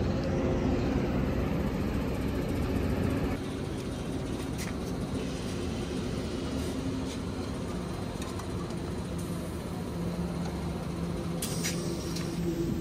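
Steady low mechanical hum, with short sharp hisses of compressed air near the end as an air-pump chuck is pressed onto a motorcycle's front tyre valve to top up a slightly low tyre.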